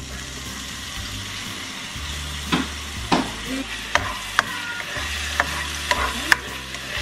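Minced garlic sizzling in hot oil in a nonstick wok, stirred with a spatula. From about two and a half seconds in, the spatula knocks against the pan several times over a steady sizzle.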